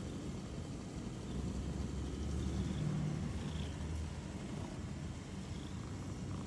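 Domestic cat purring close up, a steady low rumble that swells a little between about one and a half and four seconds in.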